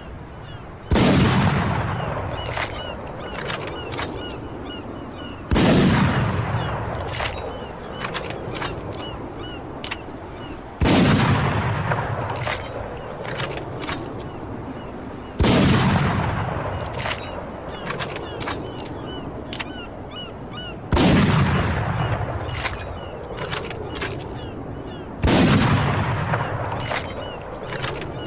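M99 sniper rifle firing six heavy shots, about five seconds apart, each followed by a long echoing tail. Sharp clicks come between the shots.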